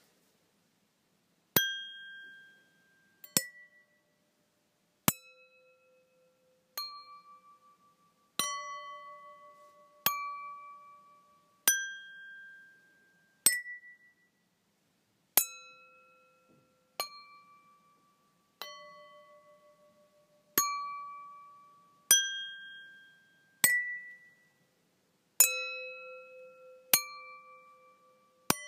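Stemmed drinking glasses struck one after another, a clear ding about every one and three-quarter seconds. Each ring has its own pitch and fades away, so the strikes step through a set of different notes.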